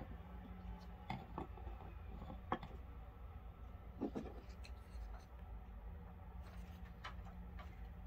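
Scattered light clicks and knocks as Benchmade AFO automatic folding knives are picked up and handled on a wooden table, over a low steady hum.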